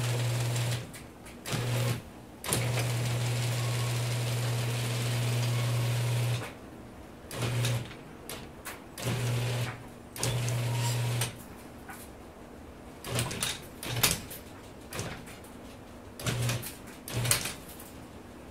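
Genie screw-drive garage door opener motor running with a steady hum, starting and stopping several times in short runs with one longer run of about four seconds, now turning the screw rod through a newly replaced motor coupler. Several sharp knocks and clicks sound in the second half.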